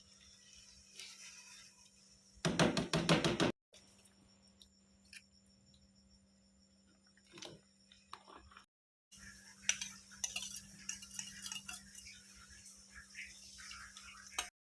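Kitchen utensils clinking and clattering against pots and dishes during cooking, in several short cuts, with a loud run of rapid strikes about two and a half seconds in and a busier stretch of clinks in the second half.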